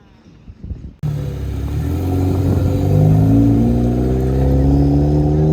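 A car engine under acceleration, its pitch rising slowly and steadily. It starts abruptly about a second in, after a quieter stretch.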